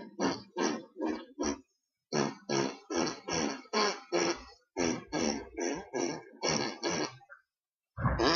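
A short fart sound repeated over and over, about three a second, broken by two brief pauses.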